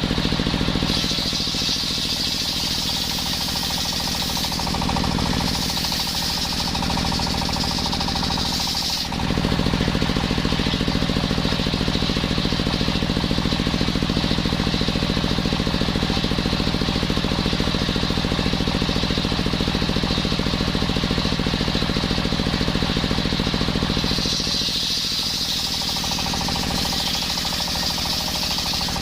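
Circular sawmill machine running steadily: a low machine drone with a higher hiss that comes and goes. The sound steps up slightly about nine seconds in.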